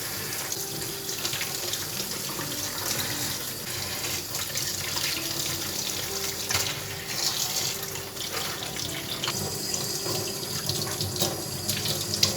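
Water running from a tap into a sink, with small splashes and clicks through it.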